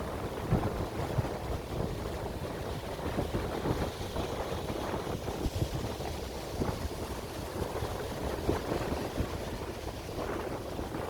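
Strong wind buffeting the microphone in irregular gusts, over the rush of sea waves.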